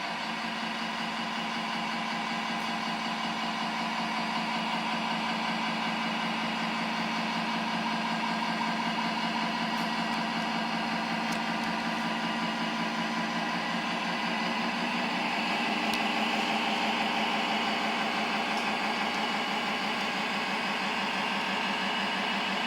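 Simulated Scania truck engine sound from an RC truck's Servonaut sound module, played through a small speaker with almost no deep bass, running steadily. It grows a little louder about two-thirds of the way through.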